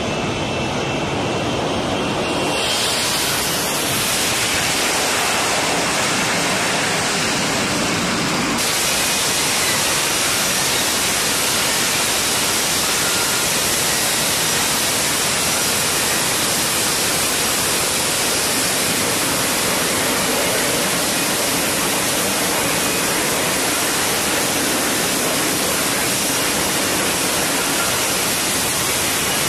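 An F-35B Lightning II hovering for a vertical landing, its jet engine and lift fan giving a steady, loud roar. About eight seconds in, the roar abruptly turns hissier.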